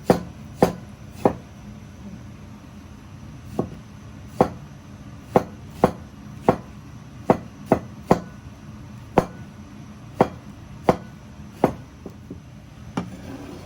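Kitchen knife chopping on a cutting board: about sixteen separate strikes, slow and unevenly spaced.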